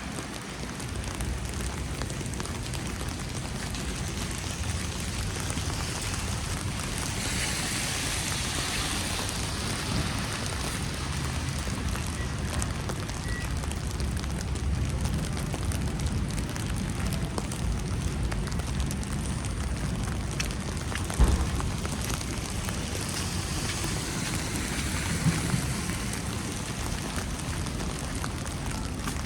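Steady patter of falling wet snow, over a low rumble. The hiss swells briefly twice, about a third of the way in and again near the end, and there is one sharp knock about two thirds of the way through.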